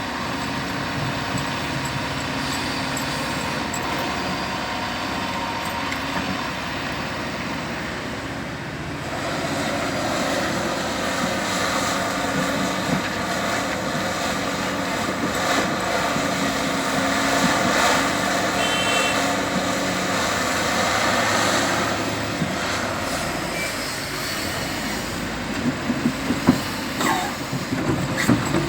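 Caterpillar 352F excavator's diesel engine working, getting louder from about nine seconds in and easing off after about twenty-two seconds. A run of sharp knocks follows near the end.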